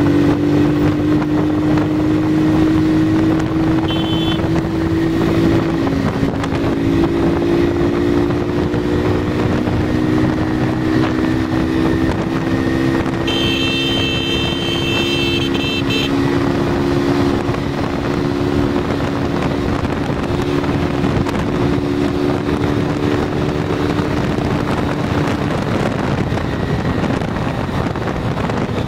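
Runner Kite 100cc scooter engine running at a steady cruising speed, its note drifting only slightly in pitch, with wind rushing over the microphone. A shrill high tone sounds for a couple of seconds about halfway through.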